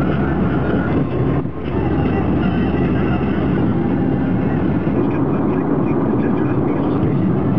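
Road and wind noise inside a car at highway speed: a steady rushing noise that briefly drops about a second and a half in.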